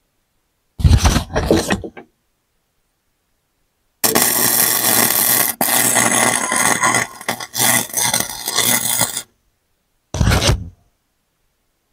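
Wire-feed arc welder crackling and spitting while welding steel: two short tack bursts about a second in, a longer run of about five seconds from four seconds in, and one more brief tack near the end. The welder is set to about the middle of its output, joining a broken hanger bracket back onto a mower deck.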